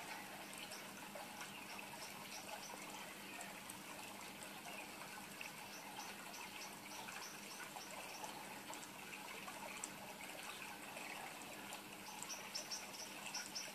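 Faint steady hiss of room noise with a low hum and scattered soft ticks; near the end, a run of faint, quick, high-pitched ticks.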